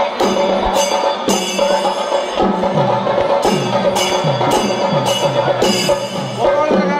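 Percussion-led music: bright metallic strikes on a steady beat about twice a second, drum strokes that drop in pitch, and held tones underneath.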